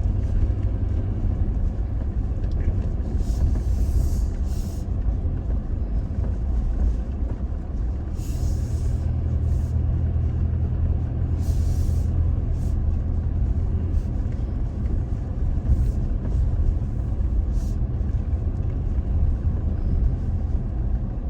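Toyota Tacoma pickup driving slowly along a dirt forest track: a steady low rumble of engine and tyres, with a few short hissing, scraping bursts.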